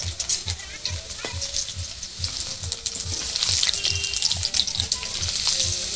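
Chana dal (split Bengal gram) sizzling and crackling in hot oil in an aluminium kadai. The oil is foaming up from the moisture left in the soaked dal, and a metal ladle is stirring it.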